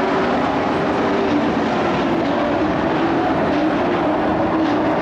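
Engines of a field of race trucks running on the track, a steady drone with engine tones that waver slightly.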